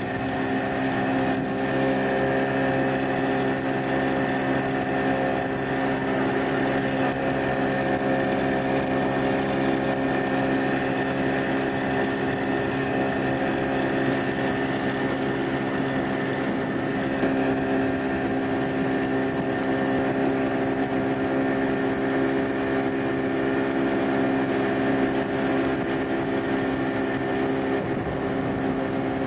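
Motorboat engine running at a steady speed throughout, an even drone with no change in pitch.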